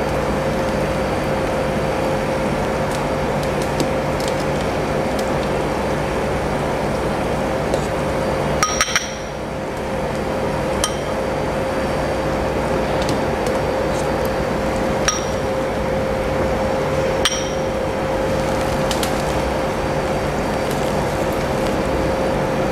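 A steel ladle clinking against a stainless stock pot several times with a short metallic ring, while scooping beef meatballs out of the broth. Underneath, a steady hum and hiss from the pot of broth boiling on an induction hob.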